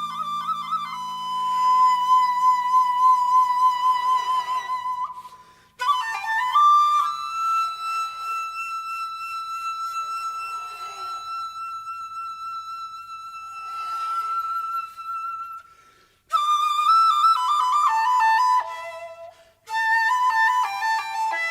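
Flute music: long held high notes alternating with quicker stepping phrases, broken by three short pauses.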